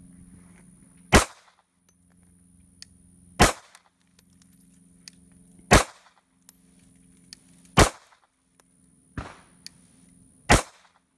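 Six shots from a 9mm Glock 19 Gen 5 pistol in slow aimed fire, one about every one to two seconds, each a sharp crack with a short ring; the fifth is weaker than the rest.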